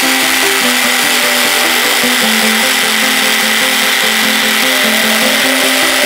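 DIY power scraper running steadily, its blade scraping the lathe's compound slide, with background music playing a stepping melody over it.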